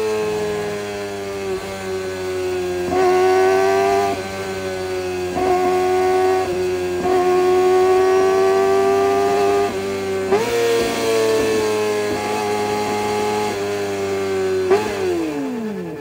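Kawasaki ZX-25R's 250cc inline-four engine with an Orion aftermarket exhaust, holding high revs with a steady, high-pitched note and small changes in throttle. The revs jump up suddenly about ten seconds in, then fall away sharply near the end.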